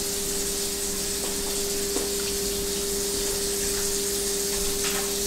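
Kitchen tap running steadily into a sink, with a steady hum under the water noise and a few faint ticks.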